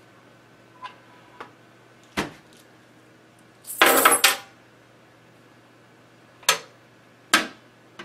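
A small lock box being handled: a couple of light clicks and a knock, then a burst of rattling clatter about halfway through as a hand rummages among the contents inside, then two sharp knocks as the lid is shut.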